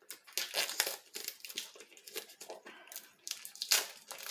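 Wrapping on a boxed card deck being torn and crinkled as it is unwrapped: irregular crackling, with one sharper rip near the end.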